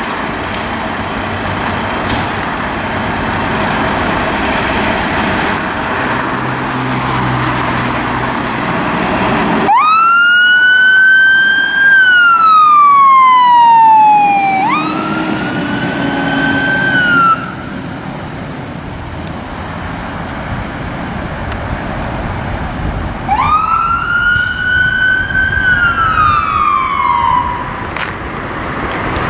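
Fire engine's engine running with a steady rumble, then its siren starts about ten seconds in. The wail climbs, slides down, climbs again and cuts off sharply. Near the end there is one more rising and falling wail.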